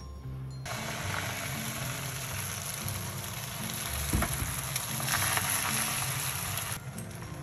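Food frying in a hot oiled pan: a steady sizzle that starts suddenly under a second in and drops away briefly near the end.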